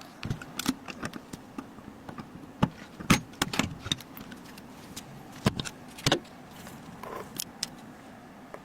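Irregular clicks, clinks and light knocks of computer hardware being handled and fitted together, over a faint steady hum. The clicks are densest in the first few seconds and thin out after about six seconds.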